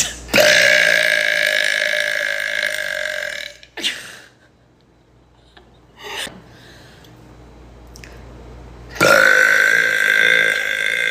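A woman's loud, long burps: the first lasts about three seconds at a steady pitch, and a second starts about nine seconds in and is still going at the end.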